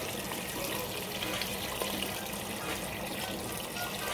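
Water pouring steadily from a pitcher into a stainless steel stockpot, splashing onto chicken pieces and broth as the pot fills.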